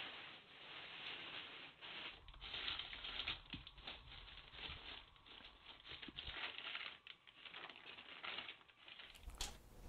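Plastic tarpaulin and sheeting crinkling and rustling in irregular bursts as hands pull and fold it back.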